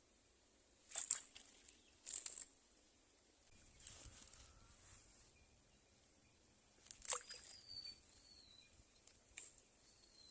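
Quiet outdoor ambience with a few short, sharp chirps or clicks spread through it and some faint, brief whistled bird calls in the second half.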